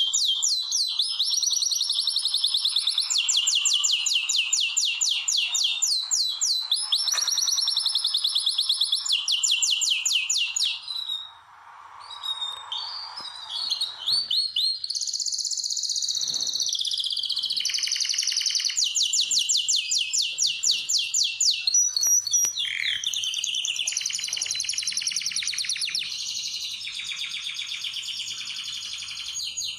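Male domestic canary singing its full courtship song, the song of a male in breeding condition that stimulates females to mate. It sings rapid high trills of fast-repeated notes in runs of a second or two, switching from one trill to the next, with a short break about eleven seconds in.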